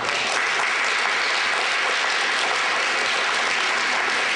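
Audience applauding steadily after a student is presented with an award.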